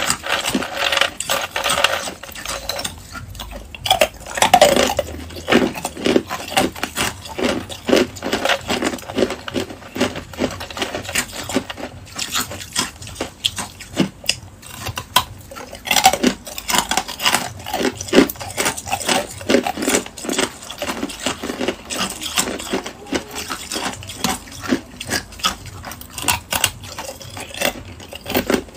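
Clear ice cubes clinking and rattling against each other as fingers pick through a bowl of ice, a dense run of small clicks and knocks.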